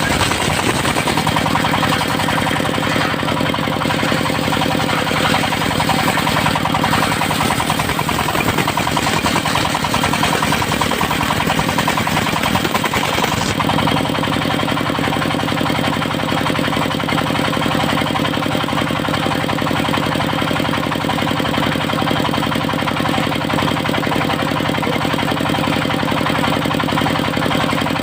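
Engine of a portable circular sawmill running steadily, with the blade cutting old teak. About halfway through, the higher hissing cutting noise drops away abruptly and the engine runs on more smoothly, unloaded.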